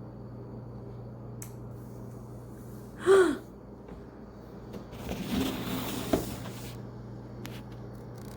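Steady low hum of room background, broken about three seconds in by a short vocal sound that falls in pitch, then a breathy murmur of voice with a sharp click between about five and six seconds.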